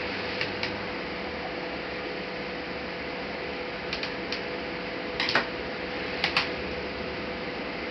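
Scattered light clicks and taps, in small groups of two or three with the loudest cluster a little past the middle, from a Lenovo G550 laptop's parts being handled during disassembly. A steady hiss with a faint hum sits underneath.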